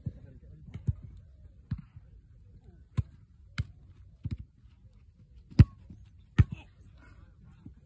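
A football being kicked and caught: a series of about eight sharp thuds at uneven intervals, the two loudest a little past halfway and under a second apart.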